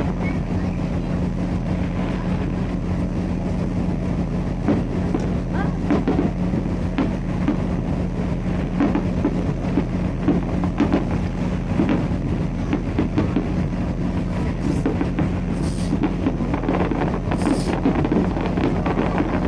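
Fireworks bursting in a continuous stream of bangs and crackles, over a steady low hum and wind on the microphone.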